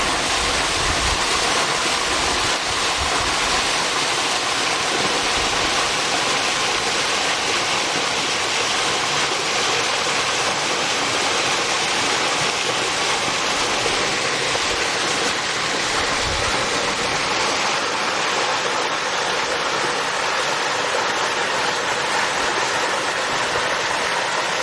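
Mountain waterfall, water rushing steadily, with a few brief low rumbles in the first few seconds and again about two-thirds of the way through.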